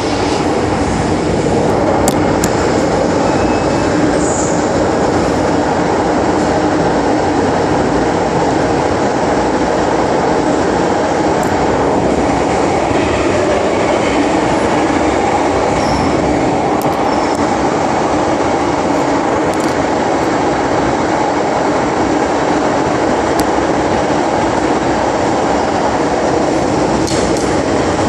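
MTR Island Line metro train running between stations: a steady drone of wheels on rail and traction motors with a low hum, with a few faint clicks.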